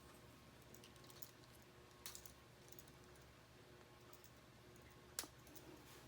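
Faint, scattered clicks of K'Nex plastic rods snapping into connectors, the sharpest about two seconds in and another about five seconds in.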